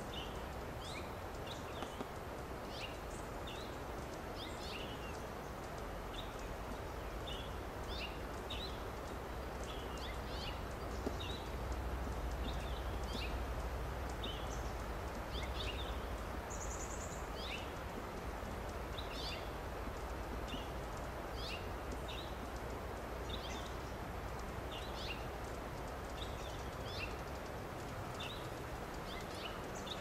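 Short, high bird calls repeated about once or twice a second, over a steady low rumble of background noise, with one brief higher trill about halfway through.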